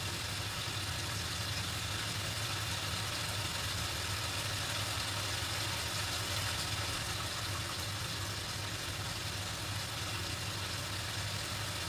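Chicken pieces frying in a pan with a steady sizzle as the chicken cooks off its water, over a steady low hum from the kitchen range hood's extractor fan.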